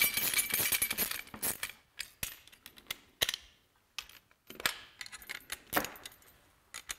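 Wrench clinking against the nuts and metal bracket of a fish-finder transducer mount as the bracket nuts are snugged up: a burst of metallic jingling in the first second or so, then scattered sharp clicks and taps.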